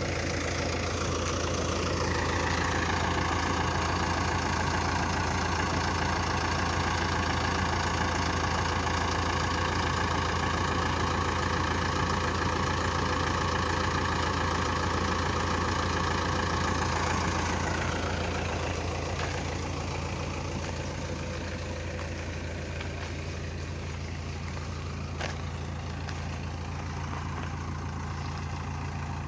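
A heavy machine's engine running steadily. It revs up about two seconds in, holds under load, and drops back toward idle around two-thirds of the way through.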